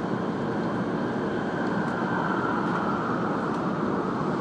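Steady running noise inside the passenger cabin of a 500 series Shinkansen train: an even rumble and rush with no breaks.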